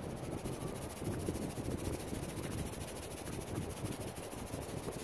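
Aerosol spray can hissing steadily as oil is sprayed onto trout fillets on a wire grill rack, with wind rumbling on the microphone.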